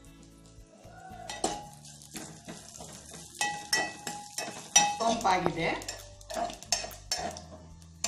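A metal spoon scraping and clinking against a metal pot as fennel seeds are stirred and roasted in ghee. The knocks ring out sharply and come thick and fast in the middle, with a light sizzle beneath.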